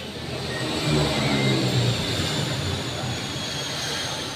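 Engine noise on an airport apron: a low rumble, loudest about a second in, under a high whine that slowly falls in pitch.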